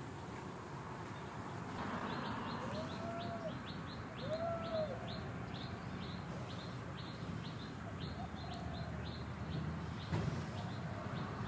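A bird chirping: a short, high note repeated two or three times a second, with two brief arched calls a few seconds in, over low, steady background noise.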